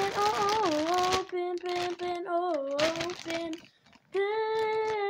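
A young girl's voice singing or humming long, drawn-out notes that waver and slide in pitch, with a held steady note near the end. Rustling sounds under the voice in the first second.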